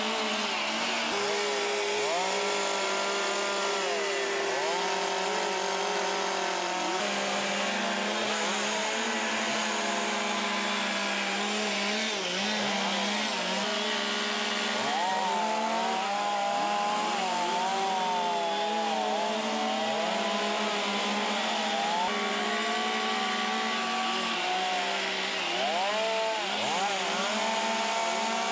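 Several chainsaws with carving bars cutting wood at once, their engines revving up and down in overlapping rises and falls. Under them runs a steady lower hum.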